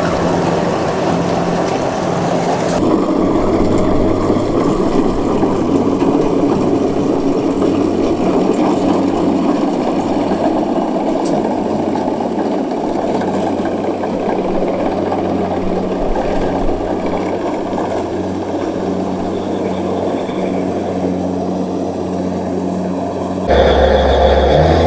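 Crawler rice combine harvester's engine running steadily under load, with the clatter and hum of its cutting and threshing machinery. The sound changes abruptly about three seconds in and again near the end.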